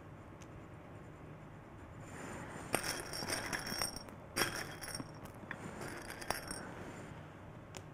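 Small hard craft pieces clinking and rattling against one another as they are rummaged through, with a couple of sharper glassy clinks. It starts about two seconds in and stops a little over six seconds in.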